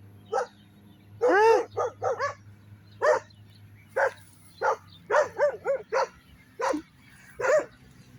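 A dog barking repeatedly in short, high-pitched barks, irregularly spaced, with a quick run of barks around the middle.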